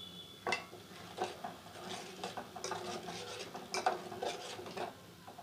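Steel spoon stirring milk in a steel pot, scraping and clinking against the pot's sides and bottom in irregular strokes.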